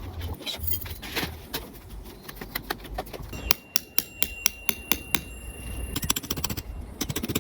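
Irregular sharp knocks and clicks of hard objects being handled or struck, with a quicker run of clicks near the end.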